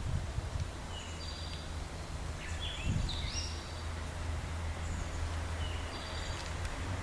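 Small birds chirping: short high calls, some sliding down in pitch, scattered through and busiest about three seconds in, over a steady low rumble.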